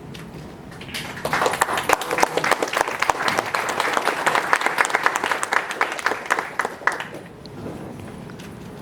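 Audience applauding, starting about a second in and dying away about seven seconds in.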